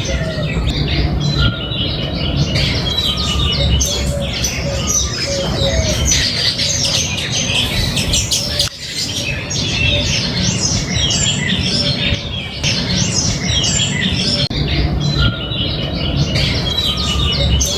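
A flock of small birds chirping densely and continuously, many short overlapping calls at once, with soft low cooing of doves underneath. A steady low rumble runs beneath the birds.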